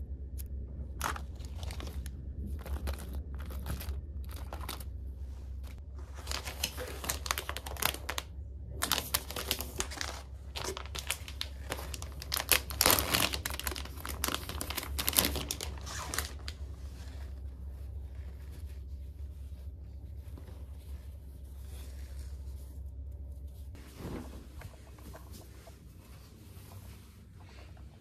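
Plastic packaging of a disposable bath towel crinkling and tearing as it is handled and opened, with scattered rustles and clicks at first and the densest, loudest crackling in the middle. It then dies down to light rustling over a steady low hum.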